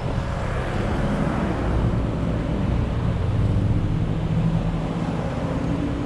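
Car driving slowly in traffic: a steady engine hum with road and tyre noise.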